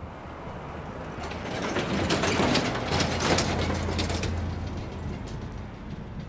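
A pickup truck drives past close by, its road noise swelling and fading, with a quick run of knocks at its loudest as its wheels cross the railroad tracks.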